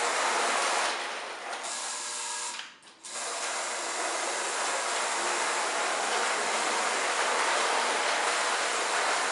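Lionel #392E Standard Gauge electric toy locomotive running around its track: a steady mechanical whirr and rattle of its motor gears and wheels. The noise fades for a moment and almost cuts out about three seconds in, then comes back steady.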